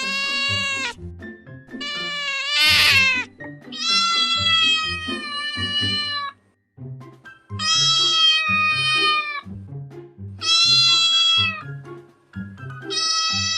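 Domestic cat meowing repeatedly in long drawn-out calls, about six of them with short pauses between, one near the start rising in pitch. Background music plays underneath.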